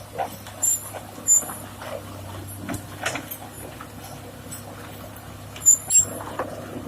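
Komatsu PC200-6 excavator's diesel engine running steadily while stones are loaded, with sharp knocks and high scraping squeals of rock and metal about a second in and again near six seconds in.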